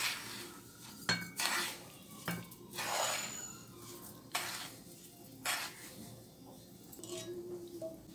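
A wooden spatula scraping and knocking against a nonstick frying pan as roasted semolina is emptied out into a glass bowl, with several sharp knocks between longer scrapes.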